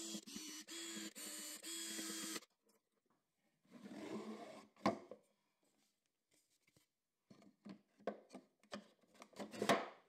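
Einhell cordless drill running in a few short, steady bursts. Then comes a wooden drawer sliding, with a click, and a run of light knocks and clicks, the loudest near the end, as the drawer is worked in and out against its bolt stops.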